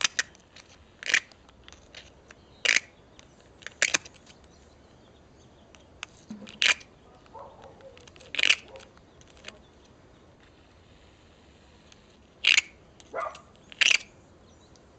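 Flint striking a marcasite nodule to throw sparks onto tinder: about nine short, sharp scraping strikes at uneven intervals, some in quick pairs, with gaps of a few seconds between.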